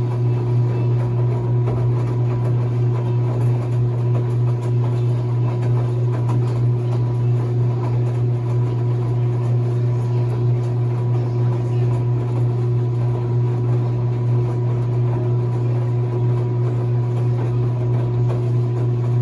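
Enxuta Soft 4 kg washing machine's motor running with a steady low hum.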